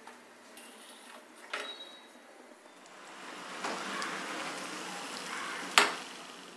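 A thin maida puri deep-frying in hot oil, the oil sizzling steadily from about three seconds in. A light knock comes early on, and near the end a sharp metal clank of the steel slotted spoon against the pan.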